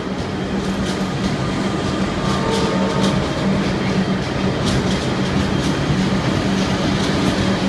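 Diesel-electric locomotive running steadily under power as it pulls a train away from the platform, with a few wheel clicks over the rail joints.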